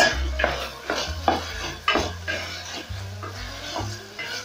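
Goat meat cubes frying in a metal pot and being stirred with a wooden spoon: scraping strokes about twice a second over a sizzle. The meat's own juices have cooked off, so it is now frying dry in its fat.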